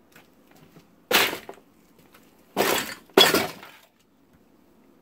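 Litter on a floor being knocked about: three short, loud clattering crashes, about a second in, then twice more close together near the middle, each dying away within half a second.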